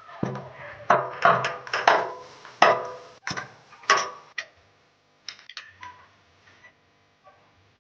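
Metal clinks and knocks of a plug spanner and the screwdriver used as its handle bar, turning a new spark plug into a small generator engine. A quick run of sharp clicks for the first four seconds or so, then a few lighter ticks.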